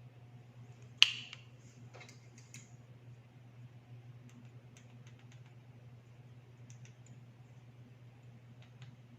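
Plastic clicks from handling a wireless-earbud charging case and earbuds: one sharp snap about a second in, then a few softer clicks and scattered light taps.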